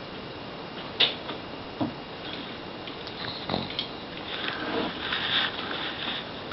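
Sleeping pug breathing noisily through its nose: a sharp click about a second in, two short puffs, then about a second and a half of sniffing breaths near the end.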